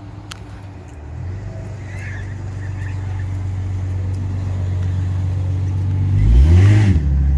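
Car engine idling with a steady low note that grows gradually louder, then revved once about six seconds in, the pitch rising and falling back.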